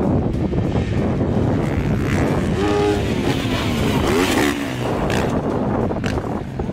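Motocross bike engines running on a dirt track. A few seconds in, a bike's engine note revs up and down as it takes a jump.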